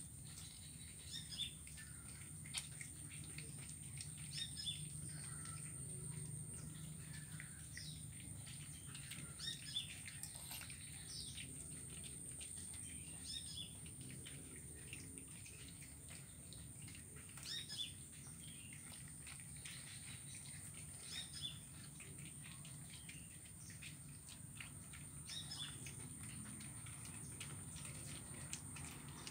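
Faint, short bird chirps coming every few seconds, over a steady low hum and a thin, steady high-pitched whine.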